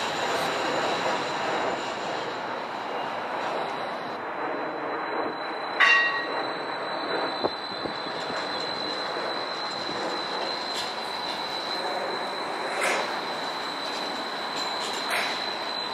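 Modern streetcar rolling on street rails with a steady running noise and a thin, high, steady tone over it. One short, ringing, bell-like ding sounds about six seconds in.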